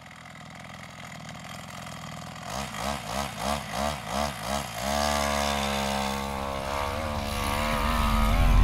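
Small 25cc gas-trimmer engine on a motorized-bicycle kit. It revs up and down in a quick series of throttle blips, about three a second, then holds a steady high buzz that grows louder toward the end.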